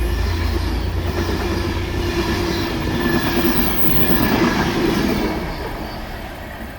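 Loco-hauled passenger train running past on the rails, a dense clatter and rumble of wheels and coaches. The noise eases toward the end as the train draws away.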